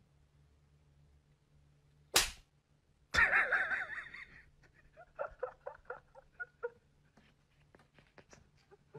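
A sharp slap-like sound about two seconds in. Then a cat gives a wavering cry, followed by a run of short chirping mews, and another sharp slap-like sound at the end.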